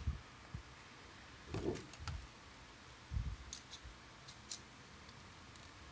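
Handling of a plastic action figure while fitting a cape onto it: a few soft knocks, then light plastic clicks about three and a half seconds in.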